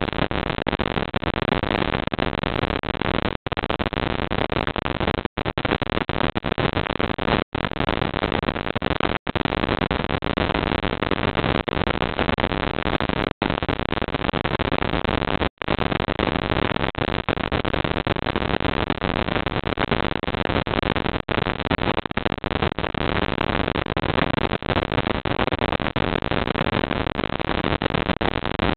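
Steady, loud hiss of electronic noise from a security camera's microphone. It is broken by about six split-second dropouts to silence during the first half.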